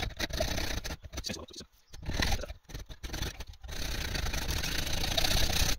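Hacksaw cutting a steel tube, the blade run through the tube's bore to free it from a casting held in a vise. The blade rasps in back-and-forth strokes with a few brief pauses, then runs steadily over the last couple of seconds.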